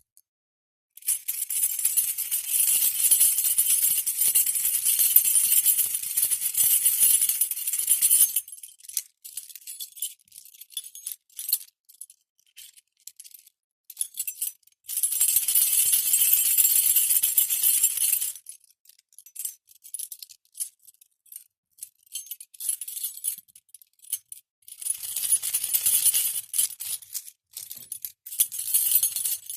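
Metal keys and metal drink-can pull tabs shaken together, jingling in three long bursts with scattered single clinks and rattles between.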